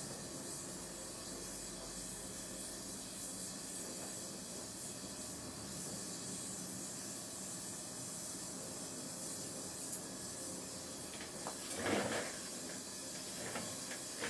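Gas torch flame hissing steadily while a steel seat lug on a chromoly bicycle frame is joined, with a brief louder burst of noise about twelve seconds in.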